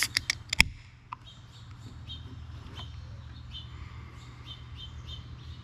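Aluminium beer can being opened: a few sharp clicks of the pull-tab, the loudest about half a second in. Birds then chirp faintly in a run of short, high calls.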